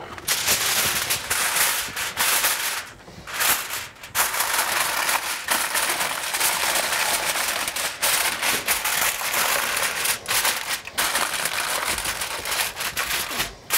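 Aluminium foil crinkling and crackling as it is pressed and crimped around the rim of a baking dish by hand, with a few brief pauses.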